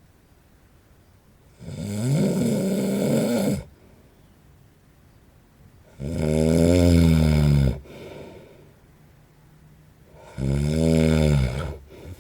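A man snoring loudly in his sleep: three pitched snores about four seconds apart, each lasting one and a half to two seconds.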